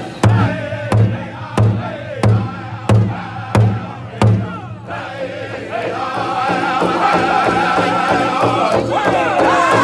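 Powwow drum group singing around a large powwow drum: about seven loud, evenly spaced hard beats struck in unison, roughly three every two seconds, with the singers' voices between them. About halfway through, the beat turns to steadier, quicker drumming as the high-pitched group singing comes back in and grows louder.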